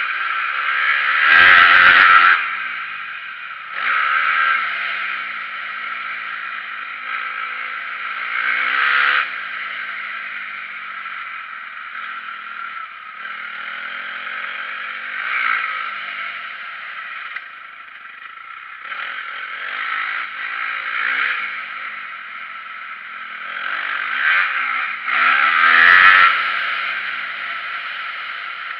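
Motocross dirt bike engine revving up and falling off repeatedly as it is ridden round a track, heard from a camera mounted on the bike. Two louder jolts cut across it, one about two seconds in and one near the end.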